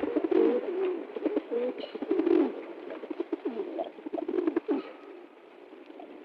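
Domestic pigeons cooing, many low warbling coos overlapping one another, growing quieter near the end.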